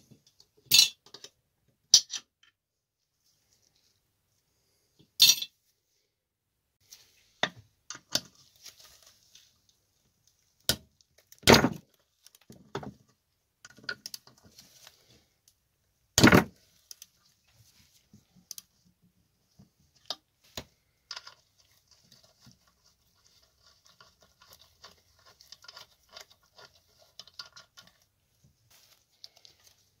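Metal parts and hand tools being handled on a workbench: a run of sharp clinks and knocks at uneven intervals, the loudest in the first half, then quieter scraping and rustling with a faint metallic ring.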